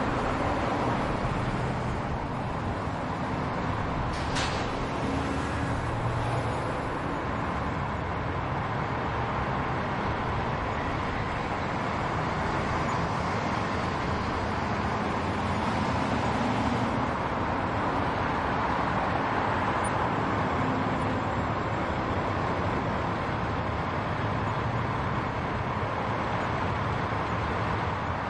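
Continuous road traffic noise: a steady wash of vehicles and tyres on the road, with one short, sharp high sound about four seconds in.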